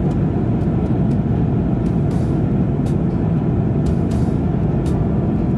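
Steady low drone of a jet airliner at cruise, engine and airflow noise heard from inside the passenger cabin.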